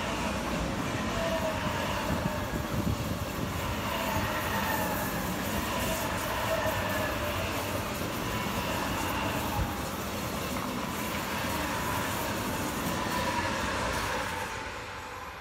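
ICE high-speed electric train passing close by at speed: a steady rumble of wheels on rail with several whining tones that slowly fall in pitch. The sound drops off near the end as the last cars go by.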